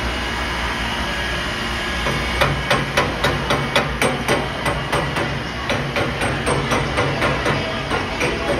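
Distillery boiler-room machinery: a steady hum, then about two seconds in a low drone and an even, rapid knocking start together, about three or four knocks a second.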